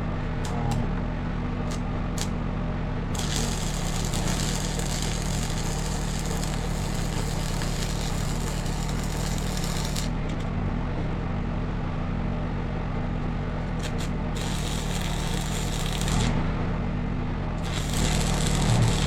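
Stick (arc) welding with a small electrode: a dense crackling sizzle of the arc in three long runs, the first starting about three seconds in, over a steady low hum from the welding machine. A few short ticks come near the start as the rod is struck.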